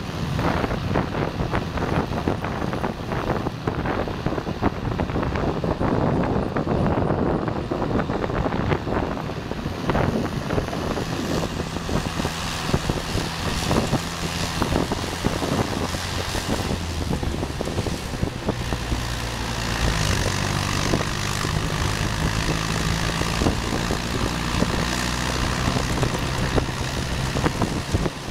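Wind buffeting the microphone of a moving vehicle, then, from about halfway, a steady engine drone underneath whose pitch shifts several times.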